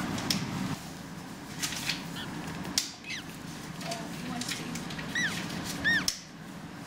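Penguin chicks peeping: a faint falling peep about three seconds in, then two short, high rise-and-fall peeps about a second apart near the end, over a steady low hum and a few faint clicks.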